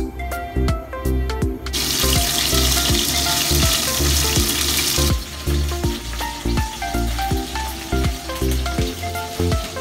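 Background music with a steady beat; from about two seconds in until about five seconds, a loud hiss of steam escaping as the lid is lifted off the steamer.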